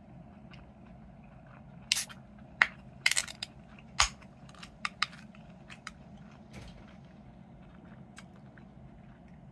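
Aluminium drink can being opened by hand: sharp metallic clicks and a short hiss as the pull tab cracks the seal and is bent back, loudest between about two and four seconds in, then a few fainter ticks.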